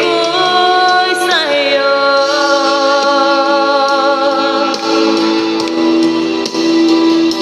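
A woman singing: she holds one note, slides down to a lower note a little over a second in, and holds that one for several seconds.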